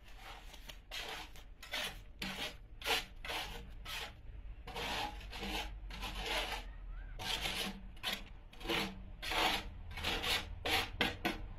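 Wet concrete being scraped out of a tipped wheelbarrow tub onto the ground: a long run of irregular rasping scrapes, about two a second.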